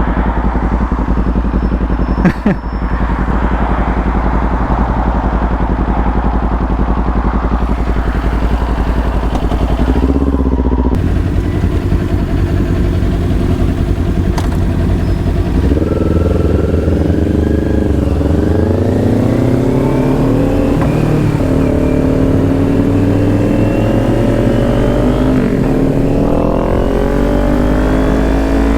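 Motorcycle engine running under way, with wind noise over it in the first half. From about halfway the engine pitch climbs and drops again and again as the bike accelerates through the gears. A single sharp knock about two seconds in.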